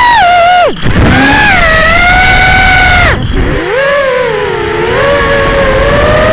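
Whine of an FPV quadcopter's electric motors and props, its pitch sweeping up and down with the throttle. It chops down sharply and climbs back about a second in and again around three seconds in.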